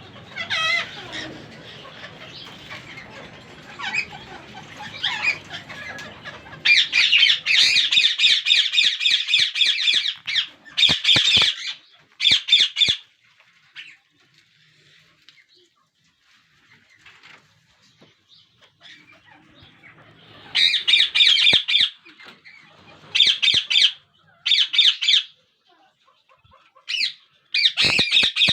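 Newly hatched Indian ringneck parakeet chick calling: bursts of rapid, repeated high chirps lasting a second or a few seconds each, with quiet gaps between them.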